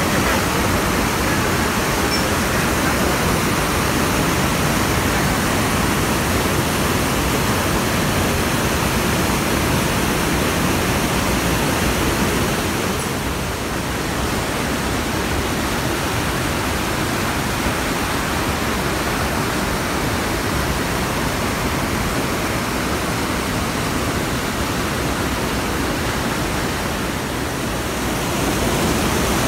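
Mountain stream in heavy flow, swollen by days of rain, rushing over boulders and small falls: a loud, steady whitewater rush, dipping slightly about halfway and again near the end.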